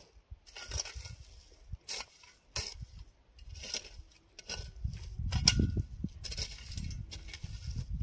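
A hoe scraping and chopping into dry, stony soil in repeated strokes, about one a second. A low rumble builds in from about halfway through.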